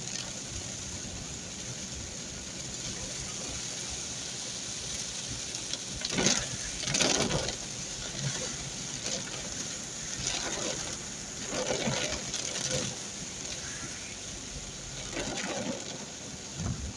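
Heavy rain falling steadily in a downpour, with several louder swells of sound rising and fading over it.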